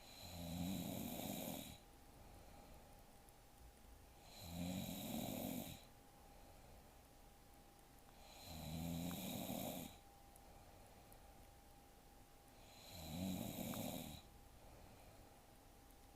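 A young woman snoring in her sleep: four snores, each about a second and a half long, coming about every four seconds in a steady rhythm.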